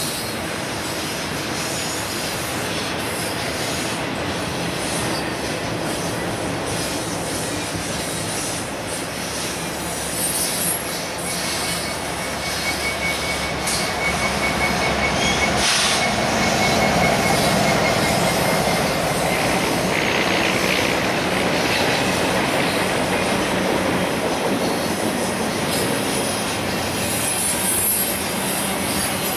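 A double-stack intermodal freight train rolling past with a steady rumble of wheels on rail. A thin, steady wheel squeal runs for several seconds before the middle. The sound swells around the middle as a diesel locomotive placed mid-train goes by.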